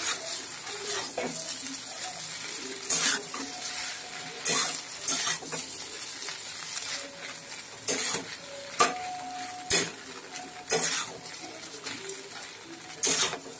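Egg chow mein stir-frying in a kadai: a steady sizzle, with a metal spatula scraping and knocking against the pan every second or two as the noodles are tossed.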